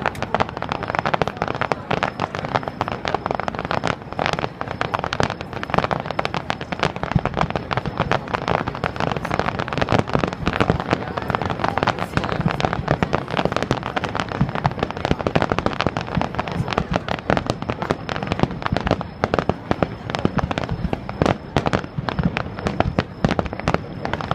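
Aerial fireworks display: a dense, continuous barrage of shell bursts and crackling reports, packed closely together with no real pauses.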